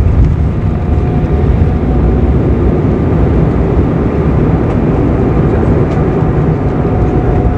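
Cabin noise of an Embraer E190 rolling out on the runway after touchdown, spoilers raised: a loud, steady rumble of engines and wheels, heaviest in the low end.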